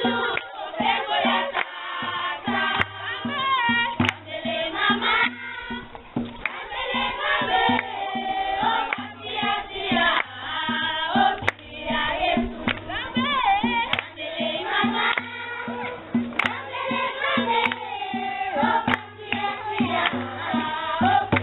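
A group of children singing together in chorus, with a regular beat underneath.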